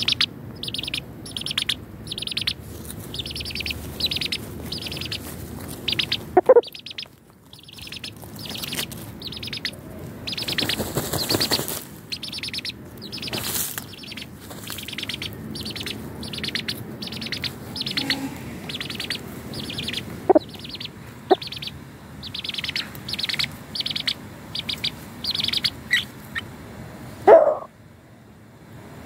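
Young chickens peeping: short high chirps repeated about two a second, broken by a few lower, louder short calls, the loudest near the end. A burst of rustling from birds scratching and dust-bathing in the dirt comes about ten to twelve seconds in.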